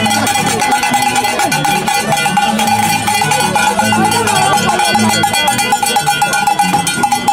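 Andean harps playing in a walking procession: quick plucked bass notes stepping up and down under a high, held, slightly wavering melody tone, with a bright metallic ring throughout.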